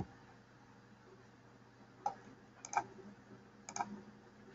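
Clicking at a computer: one sharp click right at the start, then a few quieter clicks, some in quick pairs, between about two and four seconds in, over faint room hiss.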